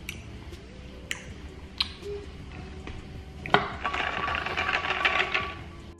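Close-miked mouth sounds: a few short lip smacks, then a longer drink from an insulated water bottle in the second half, over a faint steady hum.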